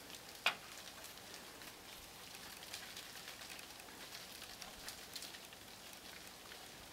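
Quiet outdoor background of faint scattered crackles and ticks. One short, sharp call sweeps through about half a second in and is the loudest sound.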